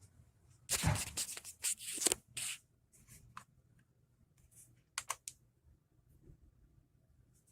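Small objects being handled: a second or two of rustling and scraping, then a few sharp clicks about five seconds in.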